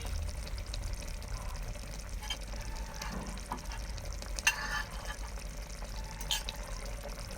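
A spoon stirring salt into egusi soup in a pot, scraping through the thick soup. There is a sharp clink about four and a half seconds in and another smaller one near the end.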